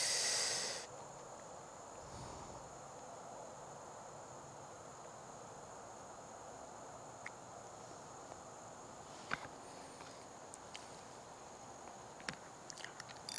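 Crickets singing one steady, high-pitched note over a faint even hush, with a short loud rustling burst at the very start and a few light clicks near the end.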